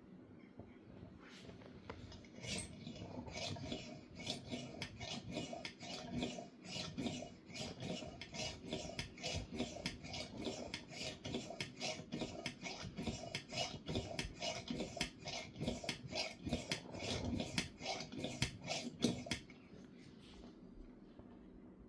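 Hand pump of a Tilley AL9a paraffin pressure lamp being worked in quick, even strokes, each one a short scraping rasp, about two to three a second, building pressure in the fuel tank. The pumping stops abruptly near the end.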